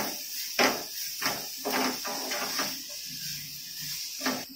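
Sliced onions and green chillies sizzling in oil in a nonstick pan while a spatula scrapes and stirs through them in quick strokes about every half second. The stirring pauses for about a second and a half, then one more stroke comes near the end.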